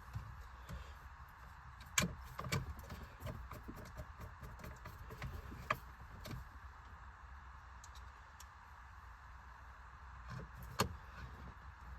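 Hand tool work on Torx screws: scattered light clicks and ticks of a driver and small parts being handled, with a few sharper knocks about two seconds in, near six seconds and near the end.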